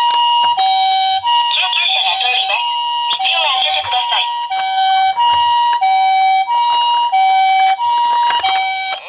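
Toy ambulance's electronic siren playing the two-tone hi-lo pattern of a Japanese ambulance, a higher and a lower tone taking turns about every half second. Twice, for about a second each time, a rough crackly noise lies over the tones.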